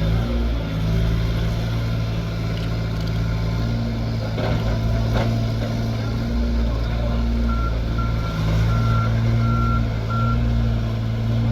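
Heavy construction machine's engine running steadily, with a back-up alarm sounding a run of about six short, evenly spaced beeps at one high pitch, about two a second, starting a little past the middle: the machine is reversing.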